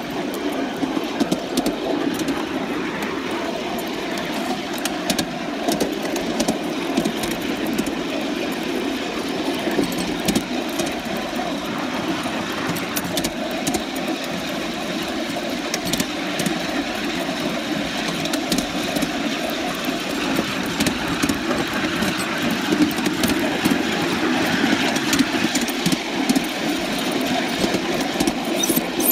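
3½-inch gauge live-steam model locomotive 'Charles', a Penrhyn Quarry Railway engine, running along a ride-on track, heard from the driving seat: a steady running noise with scattered sharp clicks.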